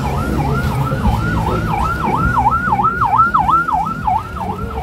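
Emergency vehicle siren in fast yelp mode, wailing rapidly up and down about four times a second, growing louder toward the middle and fading near the end.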